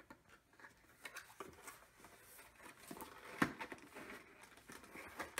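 Faint scattered taps, clicks and rustles of a toy's cardboard box being opened, with one sharper click about three and a half seconds in.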